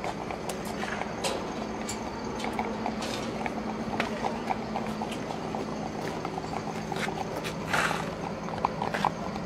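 Live turkeys crated on a transport truck shifting against the metal cages, making scattered short clicks and knocks. A short rasp comes about eight seconds in, over a steady low hum.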